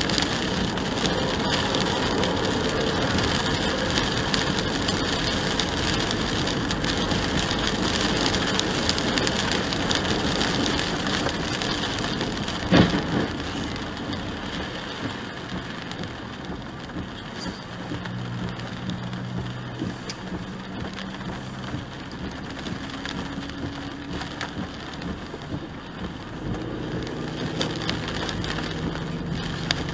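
Rain on the windshield and tyres on a soaked highway, heard from inside a moving car; the noise eases after the first half. A single sharp knock sounds about thirteen seconds in.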